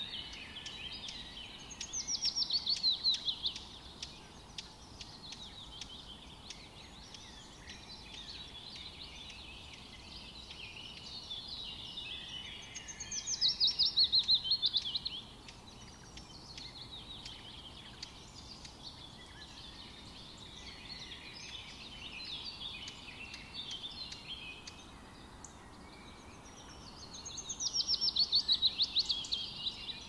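Several songbirds chirping and singing. One bird repeats a loud, rapid trill that falls in pitch, three times, about twelve seconds apart.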